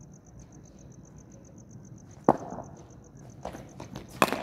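A sharp knock about two seconds in, then a cricket ball struck hard off a bat near the end, with a few lighter clicks between. Insects chirp steadily in the background, about eight pulses a second.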